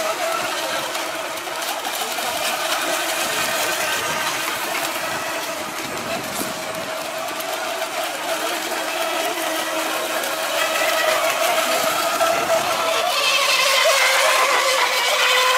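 Radio-controlled racing boats running flat out, their small engines giving a steady high-pitched whine over the sound of the hulls on the water. Near the end it grows louder and brighter as one boat passes closer.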